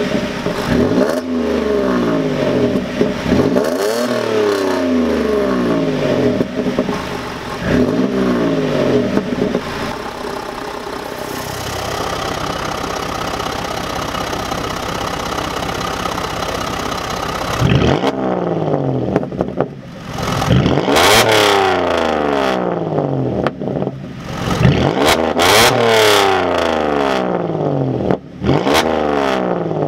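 Holden VE Commodore SV6's 3.6-litre V6 idling and revved in short throttle blips, exhaust cut-outs first closed so it breathes through the mufflers and straight-pipe centre section. About halfway through the electric cut-outs are open, dumping the exhaust ahead of the mufflers, and the quicker blips that follow have a fluttery, tractor-like sound.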